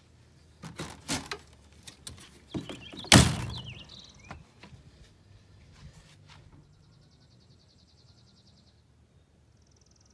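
Travel trailer entry door and screen door being worked: latch clicks and knocks, then a loud thunk just after three seconds in. Brief bird chirps follow, and a fast pulsing high chirr runs for about two seconds near the end.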